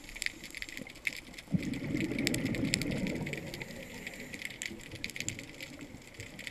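Underwater: a scuba diver's exhaled bubbles from the regulator rumble and gurgle, starting suddenly about a second and a half in and fading out two or three seconds later, over a steady crackle of sharp clicks.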